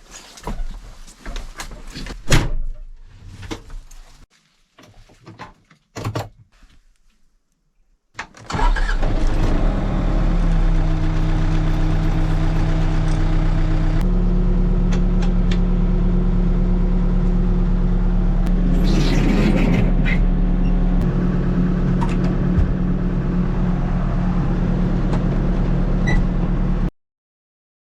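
Scattered clicks and knocks, then a backhoe's diesel engine running steadily, starting suddenly about eight seconds in. Its note shifts partway through, and it cuts off abruptly near the end.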